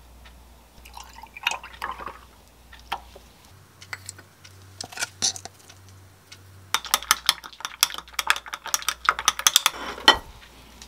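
Stirring stick clinking rapidly against a drinking glass as a protein shake is mixed, a fast run of sharp clicks over the last few seconds. Before that, scattered light clicks and handling noises.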